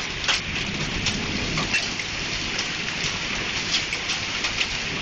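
Hail and heavy rain coming down: a steady hiss of rain with scattered sharp clicks of individual hailstones striking, several a second at irregular intervals.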